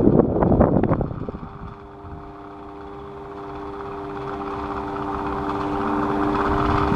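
Electric fan running: a steady motor hum on two notes with a hiss of moving air that grows gradually louder. A brief clatter of irregular knocks comes first, in about the first second.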